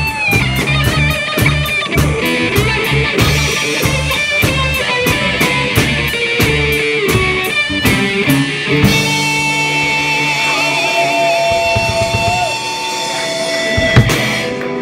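Live rock band playing: two electric guitars over a drum kit keeping a steady beat. About nine seconds in the drums drop out and the guitars hold long, bending notes, with a single drum hit near the end.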